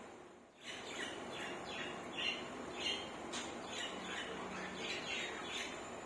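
Budgerigars chattering in a run of short chirps, about two a second, after a brief lull shortly after the start.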